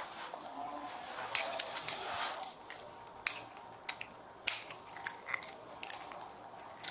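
A run of irregular sharp clicks and taps, about fifteen in all, over a faint hiss.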